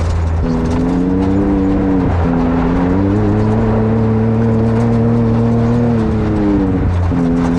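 Can-Am XRC side-by-side's engine running under way, its pitch gliding and stepping up and down several times as the revs change.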